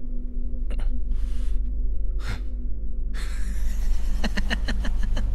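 A young man's breathy scoffing huffs, then a short, breathy derisive laugh near the end, over a low steady drone.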